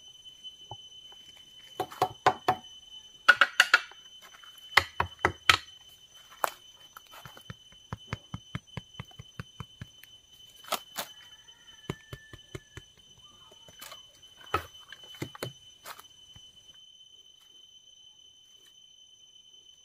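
Machete chopping at a bamboo shoot: sharp chops in short clusters, with a run of quicker, lighter strokes about four a second partway through. The chopping stops a few seconds before the end.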